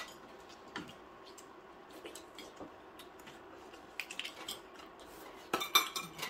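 Metal chopsticks clicking and scraping against a stainless steel tray and dishes during a meal: scattered light clinks, with a busier run of clatter a little past halfway and again near the end.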